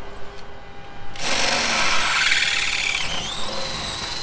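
Cordless drill boring through metal, the motor running under load from about a second in with a high whine that rises in pitch near the end. Drilling like this throws off long swirls of swarf.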